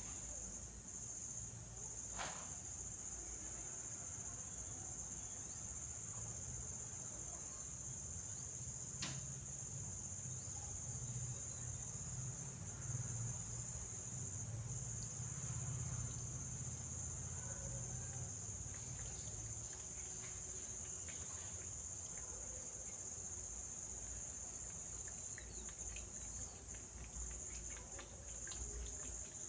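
Crickets trilling steadily at a high pitch, over a low hum, with two sharp clicks, one about two seconds in and one about nine seconds in.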